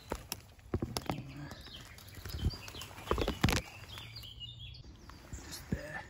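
Dry twigs, grass stems and brambles rustling, crackling and snapping as they are pushed aside and handled close to the microphone, in irregular clicks with a louder cluster of snaps about three seconds in.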